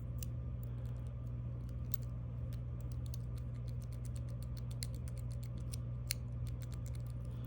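Small, irregular metallic clicks and ticks as a GOAL S lock is worked by hand with its key, with one sharper click about six seconds in, over a steady low hum.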